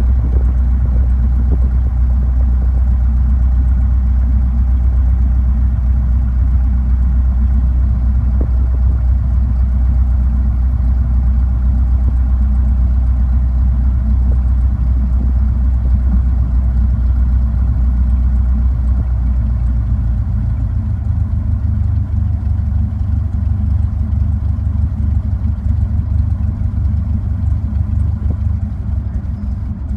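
Piston engine of a small high-wing airplane running at low taxi power, a steady drone heard from inside the cabin. About two-thirds of the way through, the drone shifts in pitch and eases off slightly.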